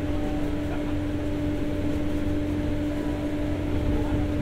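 Steady hum of the onboard generator set in a former 203-series passenger car (KuHa 202-3), heard from inside the car: one constant mid-pitched whine over a low rumble.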